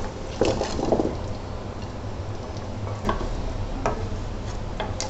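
Frozen koftas going into thick masala gravy in a cooking pot, with a few light clicks and scrapes of a spoon against the pot, a cluster in the first second and single clicks later on, over a steady low hum.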